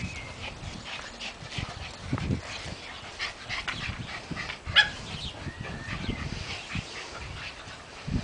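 White Hungarian Puli puppies giving short yips and whimpers as they tumble around an adult, with one loud sharp yelp about five seconds in.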